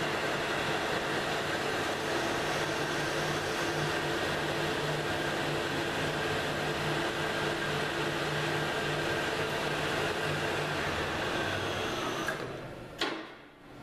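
Metal lathe running steadily while a threading tool cuts a thread on a long thin steel rod for a clamp screw. About twelve seconds in, the machine winds down with a falling pitch, then there is one sharp click.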